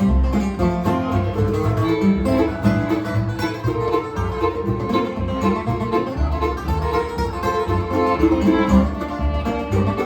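Acoustic bluegrass band playing an instrumental passage, with banjo and guitar picking over steady bass notes.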